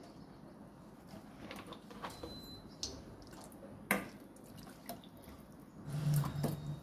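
Water being poured into a steel pan of cooked urad dal, with a few sharp clinks of the steel ladle against the pan, the loudest about four seconds in. A steady low hum comes in near the end.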